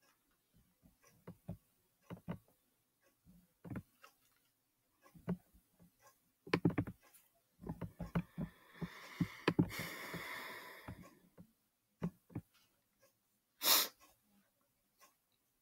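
Plastic clicks and clacks of a Rubik's cube being turned by hand, scattered and irregular, with a quick run of turns about six seconds in and a longer rustling stretch in the middle.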